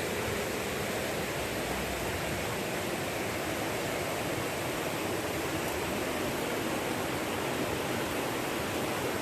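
River water rushing over rocks, a steady, even rush.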